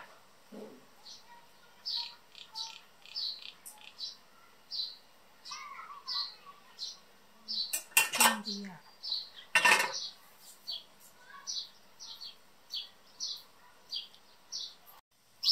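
A small bird chirping over and over, about twice a second, with two sharp clinks of cutlery against a plate about eight and ten seconds in.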